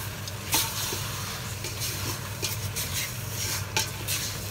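Pork belly sizzling as it sears in hot oil in an aluminium pot, with small crackles throughout. A wooden spatula scrapes as it turns the meat, knocking against the pot about half a second in and again near the end.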